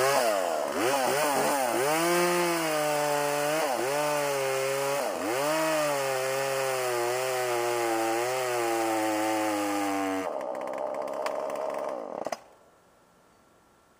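Gas chainsaw running at high speed, its engine note sagging and recovering again and again as it works through wood. About ten seconds in it drops to a lower, steadier note, then the engine is switched off a couple of seconds later.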